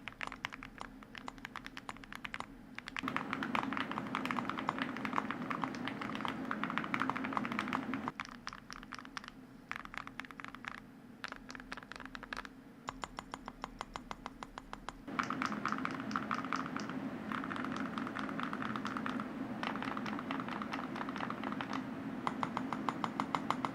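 Typing on a Sugar 65 mechanical keyboard with Holy Panda tactile switches and full metal keycaps: a dense run of key clacks, deep and talky, with the spacebar clinking. The typing speeds up and grows louder about three seconds in, slows about eight seconds in, and picks up again about fifteen seconds in.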